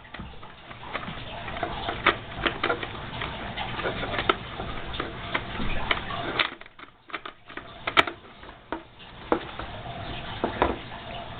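Irregular clicks and taps of the hard plastic parts of a Wodent Wheel being handled and fitted together, with a sharp snap about eight seconds in.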